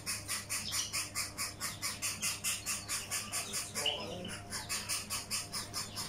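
Caged birds chirping in a rapid, even pulse of high chirps, about five a second. A short, different call stands out about four seconds in.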